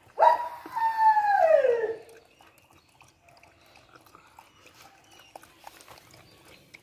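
A dog whines once, a drawn-out whimper that slides down in pitch over nearly two seconds. Faint, irregular clicks follow as a dog feeds at a plastic bowl.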